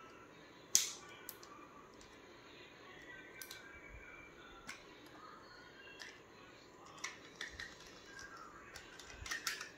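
Plastic clicks and handling noise as an action camera's clear waterproof housing is unlatched and opened: one sharp click about a second in, then scattered lighter clicks, with a flurry of small clicks and rustling near the end.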